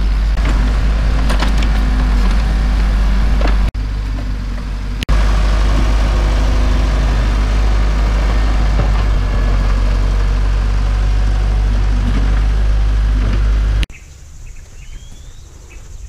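Backhoe loader's diesel engine running close by, a steady low drone. It cuts off abruptly near the end, leaving quieter open-air ambience.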